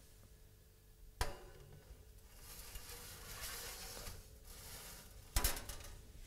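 A metal baking tray being slid onto an oven's wire rack: a sharp metal clank about a second in, a scraping slide over the next couple of seconds, and a second, louder metal clank about five seconds in.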